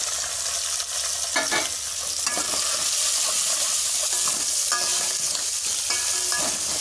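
Chopped tomatoes sizzling in a hot oil tempering in an aluminium pot, stirred with a metal ladle. The ladle scrapes and squeaks against the pot a few times.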